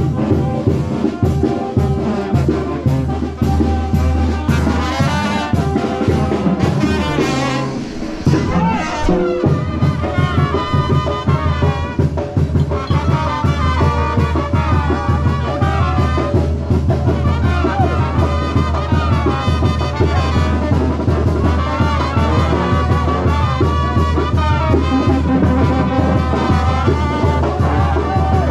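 Brass band playing procession music loudly, with trumpets and trombones over a steady low bass line and a regular drum beat.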